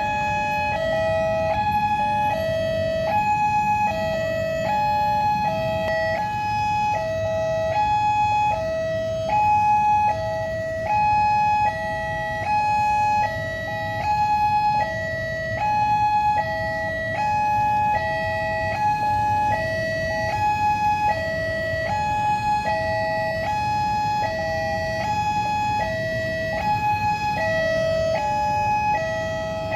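Railway level-crossing warning alarm sounding for an approaching train: an electronic two-tone signal that keeps switching back and forth between a higher and a lower pitch, over a low rumble of road traffic.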